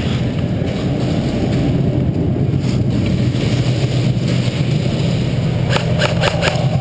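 A steady low mechanical hum throughout, with a quick burst of about five sharp cracks about six seconds in, typical of an airsoft gun firing a short automatic burst.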